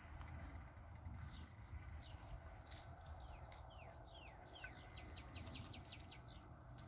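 Small birds chirping faintly. There are several single downward-sliding chirps, then a quick run of about ten short notes about two-thirds of the way through, over a faint low rumble.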